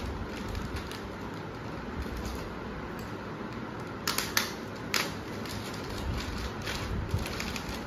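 Clear plastic bag around a new speaker cabinet being handled and cut open: low rustling of the plastic, with a few sharp crinkles and snaps about four to five seconds in.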